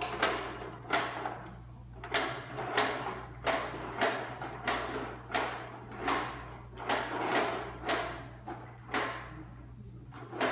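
Toy push lawnmower clacking loudly as it is rolled along a tile floor, a rattling burst about every two-thirds of a second. The clacking stops about nine seconds in, with one more burst near the end.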